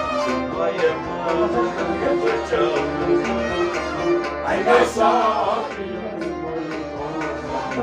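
Kashmiri Sufiyana kalam ensemble playing an instrumental passage between sung lines: harmonium sustaining the melody over a drone, with a bowed string instrument and a plucked Kashmiri rabab, whose strokes repeat in a steady rhythm.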